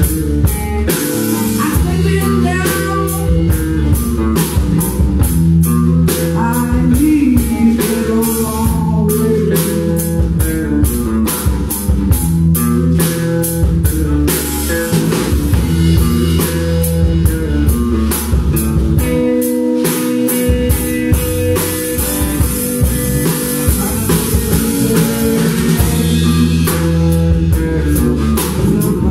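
A blues-rock band playing live: electric guitars over a drum kit with steady cymbal hits and a bass line. The bass drops out for a moment about twenty seconds in.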